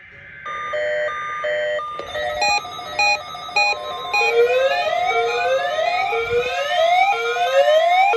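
Electronic emergency alert tones from a weather radio test: a pattern of on-off beeps, then from about four seconds in a steady NOAA Weather Radio warning alarm tone. Over that tone a rising electronic whoop repeats a little faster than once a second.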